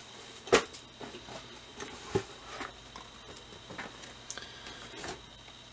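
A cardboard model kit box being handled on a table: a sharp knock about half a second in, another just after two seconds, and light taps and rustles between.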